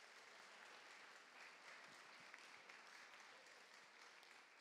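Faint applause from an audience.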